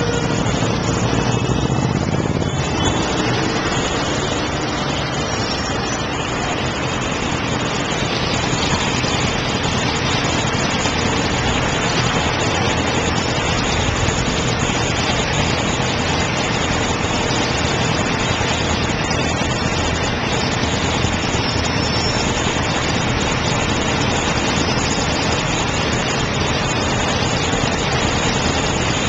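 Steady city road traffic noise with motorcycle engines idling close by, heavier and deeper in the first few seconds while moving.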